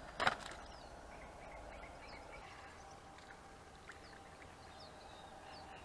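Faint outdoor ambience by a pond: scattered short bird chirps over a faint steady hum, opened by one short sharp noise about a quarter second in.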